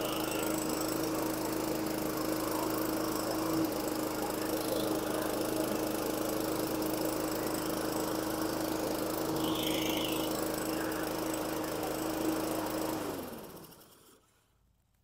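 Honda GCV160 single-cylinder lawn mower engine running steadily after a carburetor cleaning, then shut off about 13 seconds in, its pitch sinking as it winds down to a stop. The owner says it is not running tip-top, with a little fluctuation in the RPM.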